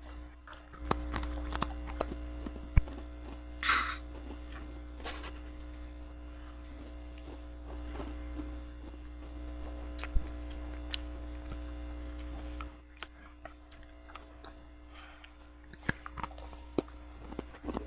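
Steady electrical hum, dropping away about two-thirds of the way through and returning near the end, with scattered small clicks and taps and a brief rustle about four seconds in.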